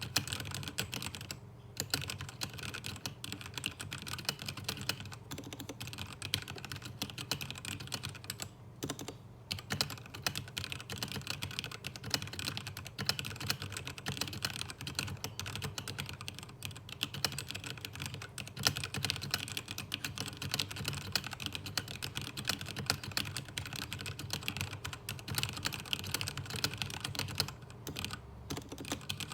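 Continuous fast typing on a Royal Kludge RK855 mechanical keyboard with stock RK Red linear switches, unmodded and without case foam: a dense stream of keystroke clacks with a few brief pauses.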